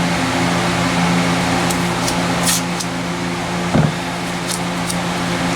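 A steady mechanical hum from a running machine. A few light clicks come through it, with one dull knock a little past halfway.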